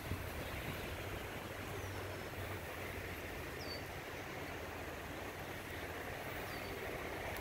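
Steady wind rumbling on the microphone, with three faint short high chirps spread through it.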